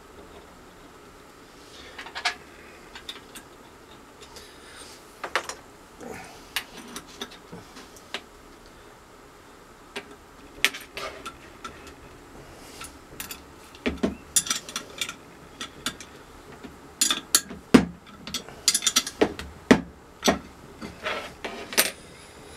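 A homemade leather embossing press being tightened by hand: scattered clicks and knocks of its hardware being worked. They are sparse at first and come thicker and faster in the last third.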